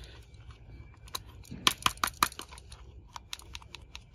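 Irregular light clicks and rattles of a small plastic toy gun being handled, with a few louder clicks about two seconds in.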